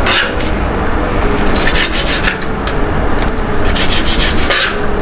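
A knife cutting the fat and skin off a raw chicken tail (bishop nose) on a board: short scraping strokes in two runs, one about a second and a half in and one near the end, over a steady low rumble.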